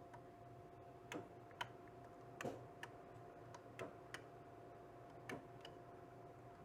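Rocker battery switches on a boat's DC battery switch panel clicking as each is pressed to off: about eight faint, sharp clicks, loosely in pairs, spread a second or so apart, over a faint steady hum.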